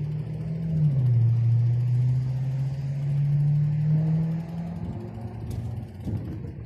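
A motor vehicle's engine accelerates: its pitch drops at a gear change about a second in, then climbs steadily before fading out near five seconds.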